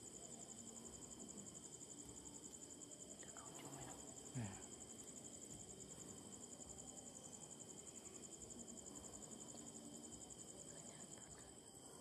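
Insects chirping in a fast, even pulsing trill, with other steady insect tones beneath it. A faint, short downward-sliding sound comes about four seconds in.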